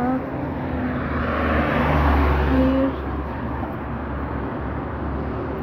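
A car passing on the road: engine and tyre noise that swells to a peak about two seconds in, then fades back to a steady traffic hum.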